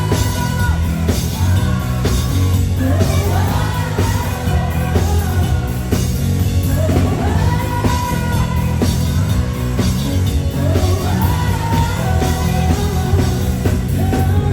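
Live pop-rock song: a woman singing long, sliding held notes over a full band with a steady drum beat.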